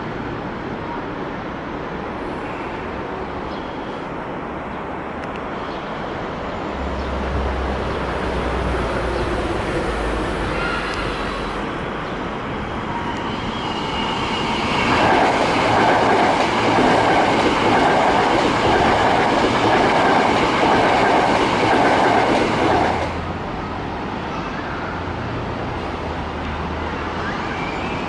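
Hankyu electric train running past on jointed rail, its wheels clacking in a steady rhythm over the rail joints. The sound builds to its loudest a little past halfway as the cars pass close, then cuts off suddenly.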